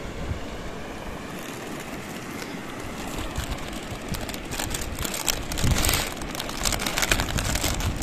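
A foil chip packet (Lay's) being handled and crinkled, giving a run of sharp crackles from about three seconds in, over a steady rushing background noise.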